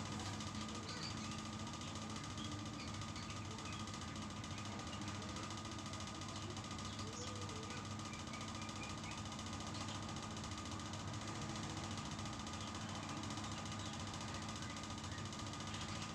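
Steady background hum and room noise with a constant low drone and a fainter higher tone, and a few faint high chirps here and there.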